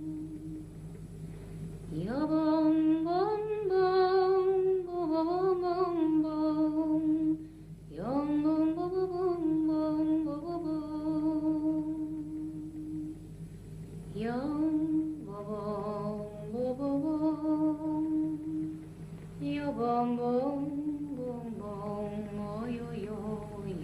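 Music from a radio programme's music break: a solo voice singing a slow melody with vibrato. Its phrases often begin with an upward swoop, over a steady low held accompaniment.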